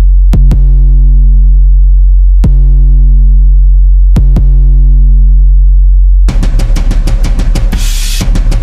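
Music soundtrack: a loud, sustained deep bass drone with a few sharp clicks, then about six seconds in a fast drum beat with cymbals starts.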